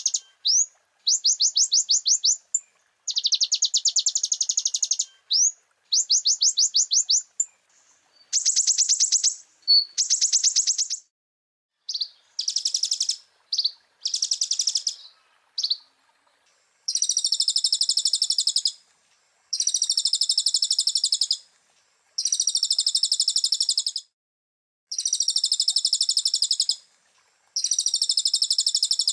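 Kolibri ninja (brown-throated sunbird) singing a mimicry-rich 'full isian' song, in bursts of fast, high-pitched chirping of one to two seconds each, separated by short pauses. From about halfway the phrases change to steadier trilling strophes repeated at regular intervals.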